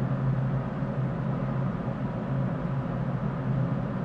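Steady low hum with a hiss over it: continuous background machine or room noise.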